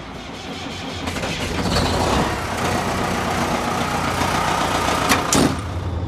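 Semi truck's diesel engine running, heard from inside the cab. The noise builds over the first two seconds and then holds steady, with two sharp clicks about five seconds in.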